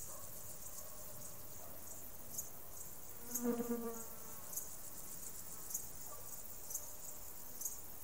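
Insects chirping steadily in a high-pitched chorus, with louder chirps about once a second. A brief pitched call sounds about three and a half seconds in.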